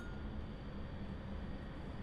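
Steady low room hum with an even hiss.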